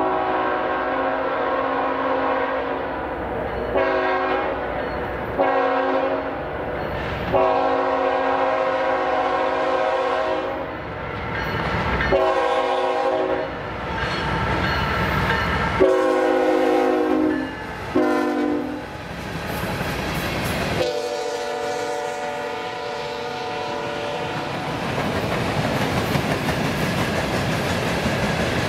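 CSX freight locomotive's air horn sounding a string of about eight short and long blasts, the later ones lower in pitch. After that, the freight cars' wheels roll over the rail joints with a steady clickety-clack.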